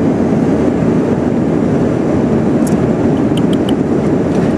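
Steady airplane cabin noise in flight, a deep even rumble, with a few faint light ticks about midway.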